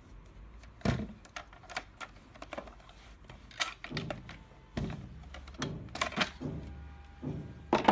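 Irregular plastic clicks and knocks as the moulded outer casing of a ZCUT-9 automatic tape cutter is worked loose from its two snap clips, with the sharpest snap near the end.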